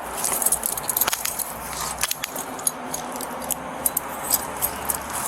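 Steel handcuffs clicking and jangling as they are locked and double-locked on a detainee's wrists, with many sharp metallic clicks scattered through.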